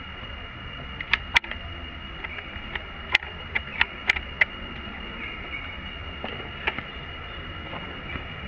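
Steady outdoor background hiss with a constant high-pitched hum, broken by a scatter of short sharp clicks or snaps, most of them between about one and four and a half seconds in.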